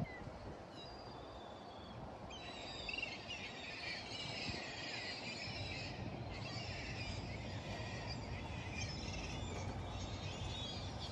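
Birds chirping and calling, many short high chirps overlapping, starting about two seconds in, over a steady low outdoor background noise.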